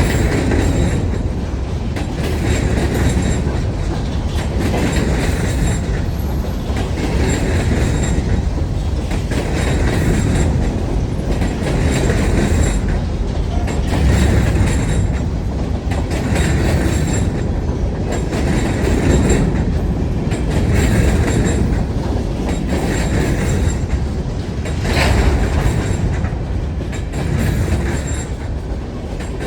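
Wheeling & Lake Erie freight train cars rolling past. A steady heavy rumble is broken by wheel clatter that comes back about every two seconds as each car's wheels pass. A brief sharp metallic sound comes near the end.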